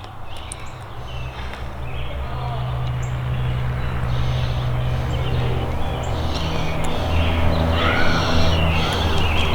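A low, steady motor hum that grows gradually louder, with faint chirps above it.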